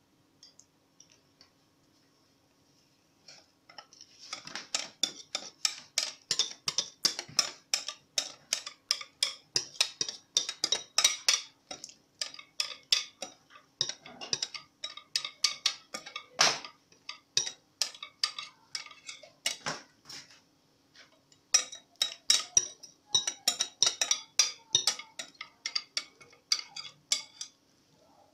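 A wire whisk clinking and tapping against the side of a mixing bowl as chocolate cake batter is worked out of it, about three sharp clinks a second. The clinking starts a few seconds in, pauses briefly about two-thirds of the way through, then resumes.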